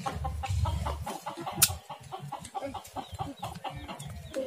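Chickens clucking repeatedly, with one sharp snap about a second and a half in as a plastic cable tie is cut with a utility knife.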